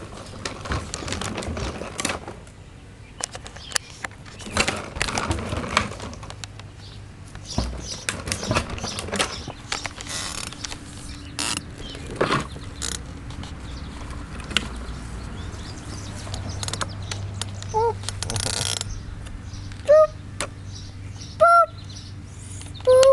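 A child's plastic tricycle being ridden, with irregular knocks, clicks and rustling of plastic parts and wheels close to the microphone. Near the end come a few short high-pitched squeaks.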